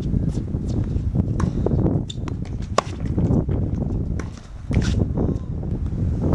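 Tennis ball being hit with a racket and bouncing on a hard court: a string of sharp pops, irregularly spaced, about one to three a second. Underneath is a steady low rumble of wind on the microphone.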